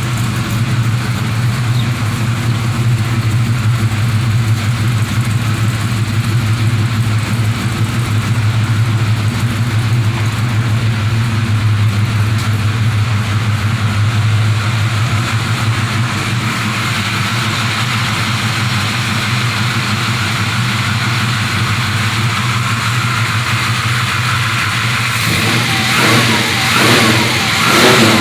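383 small-block Chevy V8 idling steadily through Hedman headers, MagnaFlow mufflers and 2.5-inch pencil-tip exhaust, with a few brief revs near the end.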